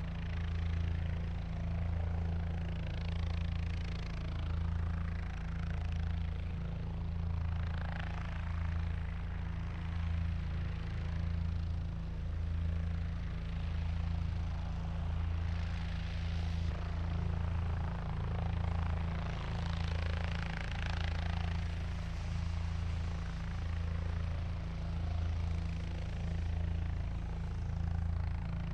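Helicopter running with its rotor turning: a steady low rotor beat under a hiss of turbine noise that swells and eases every few seconds.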